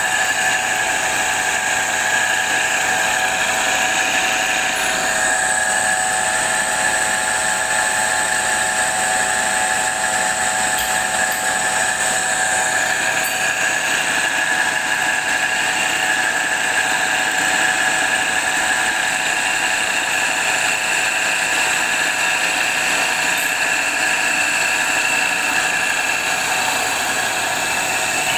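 Electric grinder running steadily, its wheel grinding the edge of a circular steel carton-cutter blade: a continuous high whine over a grinding hiss.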